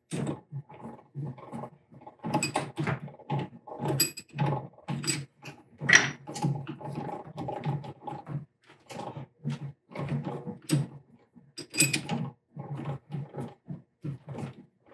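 Six-jaw scroll lathe chuck being cranked with its chuck key in short strokes: a quick, irregular run of metal clicks and scraping grinds as the freshly oiled scroll drives the jaws inward. It is the first turn after reassembly, still a little stiff.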